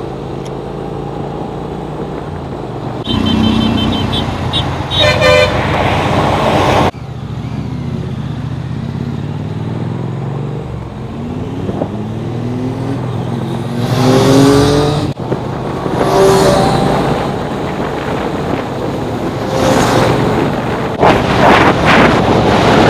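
Motorcycle engines accelerating on the road, rising in pitch again and again as they pull through the gears, with vehicle horns tooting a few times. The sound breaks off abruptly twice and starts again.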